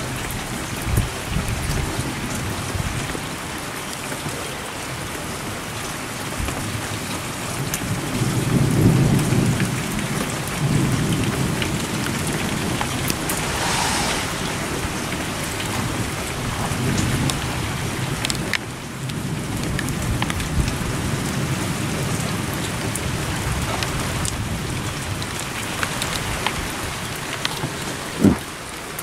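Steady rain pouring down through a thunderstorm, with low thunder rumbling about a third of the way through and again more weakly a little later.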